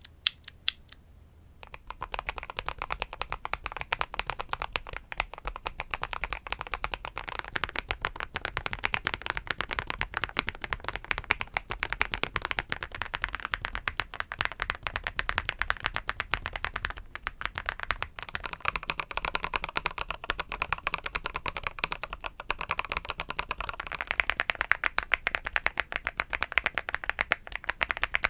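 Fast continuous typing on mechanical keyboards fitted with Haimu Midnight switches: a dense stream of key clacks. It starts after a few isolated clicks, and the tone grows brighter about 24 seconds in, when the typing moves from a plastic-housing keyboard to an aluminium-housing one.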